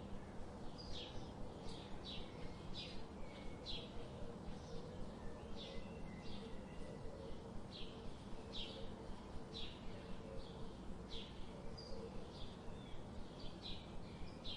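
Small birds chirping: short, high chirps about one or two a second, over a steady low background noise.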